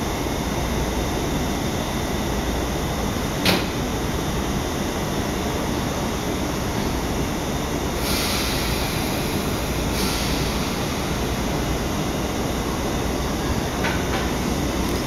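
Izukyu 8000 series electric train standing at the platform with its equipment humming steadily. A sharp click comes a few seconds in, then a hiss of air for about two seconds, and near the end the train begins to pull away.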